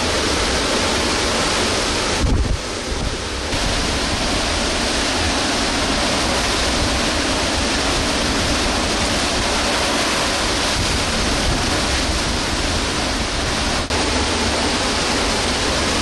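Category 5 hurricane winds blowing steadily through trees and palms with driving rain, loud and unbroken, with wind buffeting the microphone. A hard low gust hits the microphone about two seconds in.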